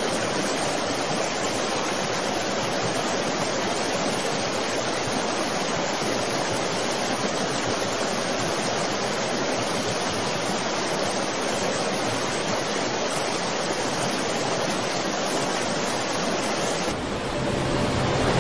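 Steady rushing noise of a swollen, muddy river in flood, even and unbroken. About a second before the end it drops and changes character.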